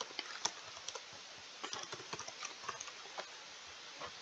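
Computer keyboard being typed on in quick, irregular faint key taps.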